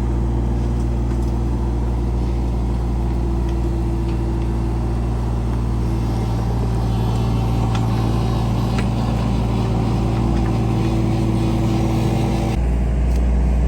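An engine running steadily at constant speed, with a low, even drone; its sound shifts slightly near the end.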